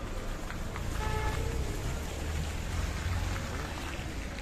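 Rainy street ambience: a steady low rumble under an even hiss, with a short pitched tone about a second in.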